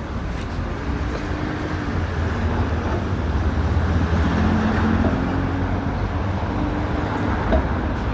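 Street traffic: a steady rumble of passing vehicles with engine hum, growing a little louder around the middle.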